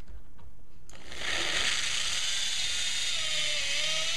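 Power drill boring a hole through stacked pine pallet boards, starting about a second in. The motor whine sags a little midway as the bit loads up, then picks back up.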